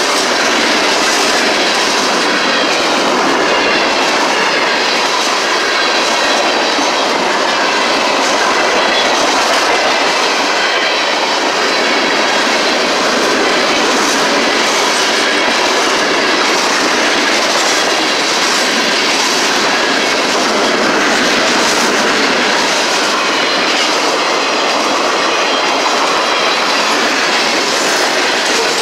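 Freight cars of a CSX freight train rolling past at speed: a steady loud rumble of steel wheels on rail with rhythmic clickety-clack over the rail joints.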